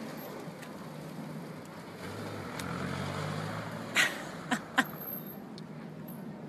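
A woman's short laugh, three quick breathy bursts about four seconds in, over a steady outdoor background hiss with a low hum just before it.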